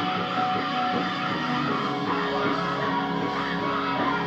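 Instrumental worship music playing under a prayer session, with sustained notes at a steady level.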